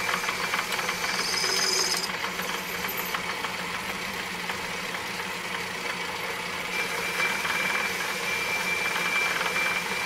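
Atlas metal lathe running under power, its spinning chuck and gear train giving a steady hum with a fine, rapid rattle. A thin high whine joins in about seven seconds in.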